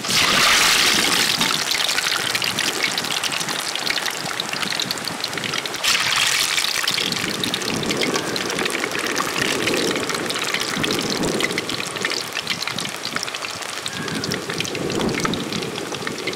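Prawn vadas deep-frying in hot oil in a metal wok: a dense, steady crackling sizzle, louder at the start and again about six seconds in.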